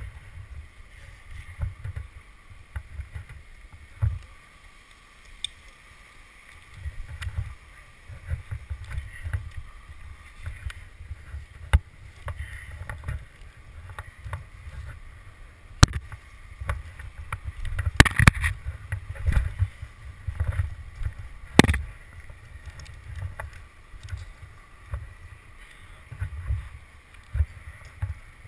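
Close-up climbing noise from a tree climber on spikes on a poplar trunk: irregular low bumps and rubbing of rope, gear and clothing against the bark. A few sharp clicks stand out past the middle, a short cluster and then one more a few seconds later.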